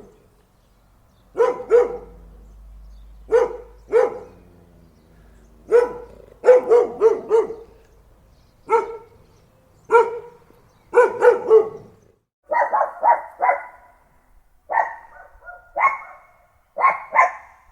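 A dog barking in single barks and quick runs of two to four, with pauses of a second or two between them. About twelve seconds in, the barks turn higher-pitched and come in short, quick runs.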